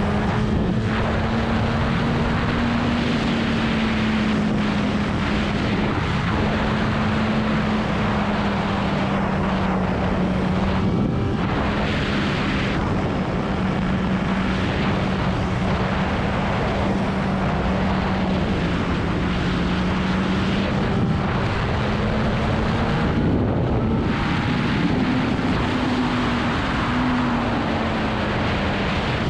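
Sport motorcycle engine running at steady, nearly constant revs while riding, with wind and road noise over it. About three-quarters of the way through the throttle is briefly eased off, then the revs waver upward again.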